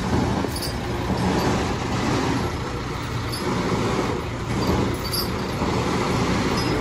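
Heavy truck engine running steadily: a low, even rumble with street noise over it.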